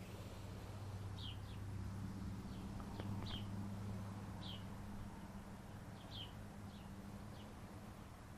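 A small bird chirping outdoors, repeated short, falling chirps every second or so, over a low steady hum that swells and fades.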